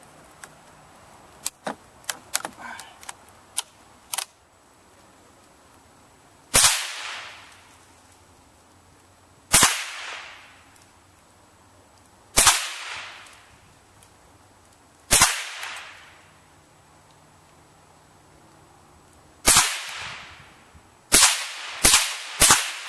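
A few small clicks, then a Savage Model 64 semi-automatic .22 rifle firing about nine shots. The first four come about three seconds apart, and the last five follow in quick succession near the end, each crack followed by a short decaying echo.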